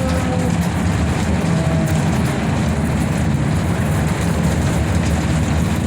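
Sandia Peak aerial tram car travelling along its cables: a steady low rumble with a broad hiss over it, with rain falling on the car.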